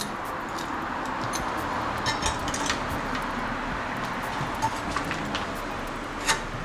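Scattered light clicks and clinks over a steady hiss, as the drop handlebar and its parts are handled; the sharpest click comes near the end.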